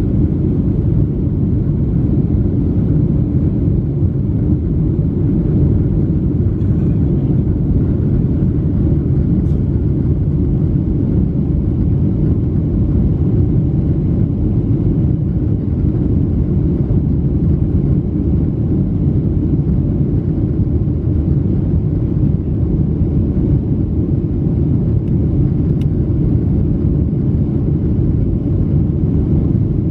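Steady, loud cabin rumble of a Boeing 737-700 climbing out just after takeoff, heard from a window seat by the wing: the CFM56-7B turbofan engines and the rush of air over the fuselage.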